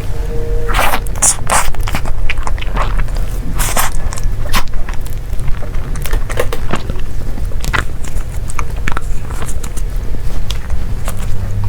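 Close-miked eating sounds: irregular crackly, crunchy bites and sticky mouth clicks as desserts are bitten and chewed, over a steady low hum.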